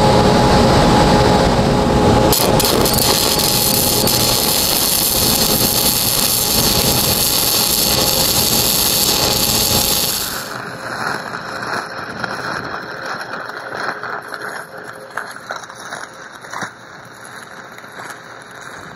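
Stick-welding arc of a 6010 electrode laying a hot pass at about 90 amps. A loud steady hiss starts a couple of seconds in over a steady machine hum, and about ten seconds in it drops to a quieter crackling sizzle.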